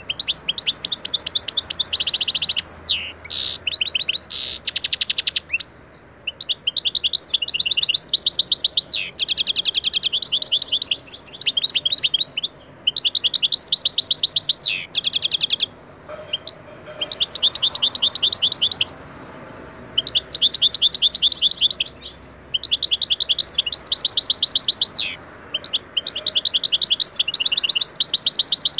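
European goldfinch singing: phrases of rapid, high twittering trills, each a few seconds long, with short pauses between them.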